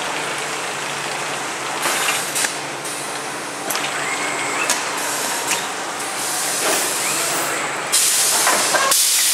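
Automated crate-stacking machine running, its pneumatic gripper giving off repeated short hisses of air over a steady machine noise, with a longer, louder hiss near the end. A few short rising whines and knocks come in between.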